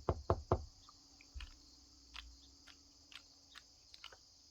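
A quick run of sharp taps or knocks in the first half-second, followed by scattered faint clicks, over a steady high-pitched insect drone.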